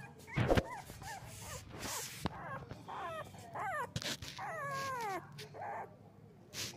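Young puppy whimpering and crying in a series of short, high-pitched whines that slide down in pitch, the longest one a little past the middle. A single sharp knock about half a second in is the loudest sound.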